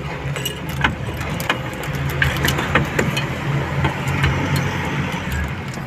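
Truck engine idling steadily, with scattered sharp clicks and knocks over it.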